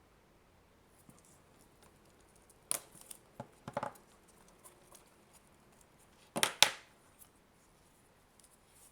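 Vinyl electrical insulation tape being pulled off the roll and wrapped around a plastic adapter casing, in several short rips, the loudest pair about two-thirds of the way through.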